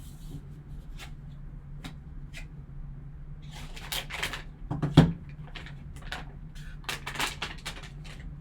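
Trading cards and pack packaging being handled: scattered light clicks and a few stretches of cards sliding and rubbing against each other, with a single sharp knock about five seconds in, over a low steady hum.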